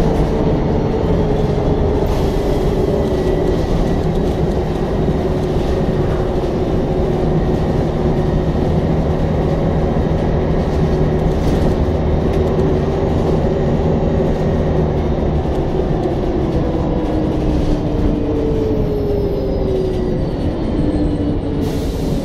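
Double-decker bus travelling at speed, heard inside the lower deck near its rear-mounted diesel engine: a loud, steady drone of engine, transmission and road noise, with whining tones that slowly fall in pitch.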